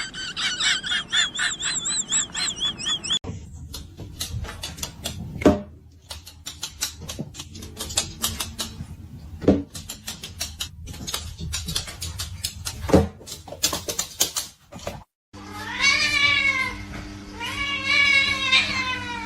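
Cat meowing: two long, drawn-out meows near the end, over a steady hum. Before them comes a run of clicks and taps with three sharper cracks.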